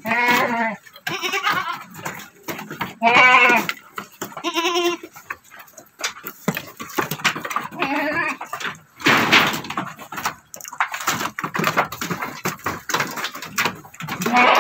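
Goats bleating several times with a quavering, wavering pitch, the loudest call about three seconds in. Later, hooves clatter and knock on the slatted wooden floor of a raised goat pen as a young goat kid jumps about.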